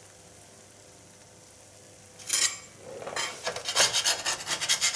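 A metal spatula scraping and rasping against a stoneware baking stone as crisp baked pizza sticks are pushed and lifted. It starts as a short burst about two seconds in and becomes a continuous run of rough scrapes from about three seconds in. The first two seconds are quiet.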